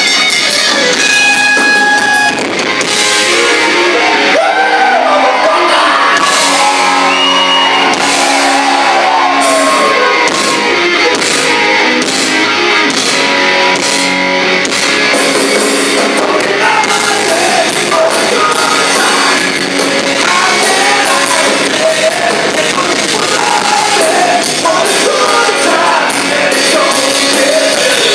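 Live rock band playing loud in a large hall: distorted electric guitars and drums, with a vocalist singing and shouting over them.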